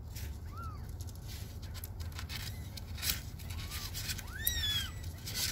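Tabby kitten mewing three times while its claws are clipped, the last mew the longest and loudest, with a few sharp clicks from the nail clipper.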